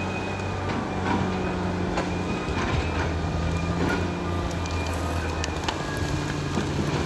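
Caterpillar D6R XL crawler bulldozer's diesel engine running steadily under load, its pitch shifting a few times, with scattered metallic clanks and knocks from the tracks and blade.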